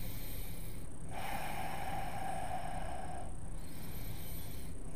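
Steady low room hum with a soft hiss that comes in about a second in and fades out past three seconds.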